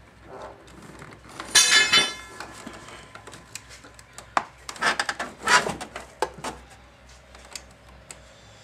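Metal hand tools and parts clattering as they are handled and set down. About a second and a half in there is one loud ringing metallic clash, followed by a run of scattered knocks and clinks.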